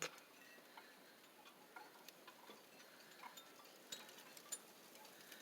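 Faint, irregular ticking and clicking of an ice storm, heard through a closed door.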